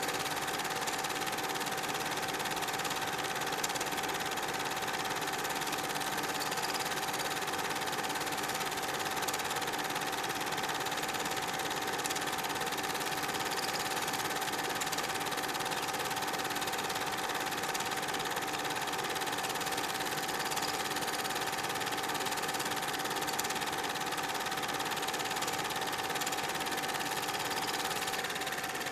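Super 8 film projector running: a steady mechanical whir with a constant whine that does not change.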